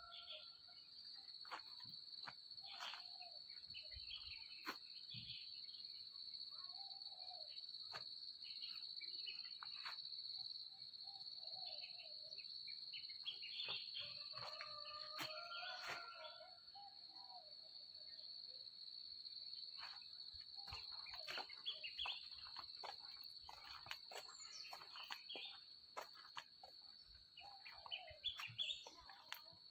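Outdoor nature ambience: insects trill steadily in one high continuous note, with scattered bird calls and brief clicks over it.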